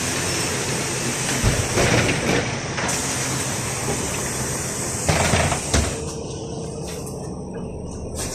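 Inside a Volgabus 5270-G2 CNG city bus standing at a stop: a steady hiss of air and street noise over the low run of the engine. About five seconds in come a few thumps as the doors close, and the hiss then drops away, leaving the engine's rumble.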